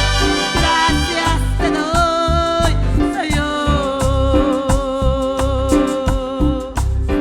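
Upbeat Latin-style music with a steady pulsing bass beat and held melody notes; one long wavering note is held from about three seconds in until near the end.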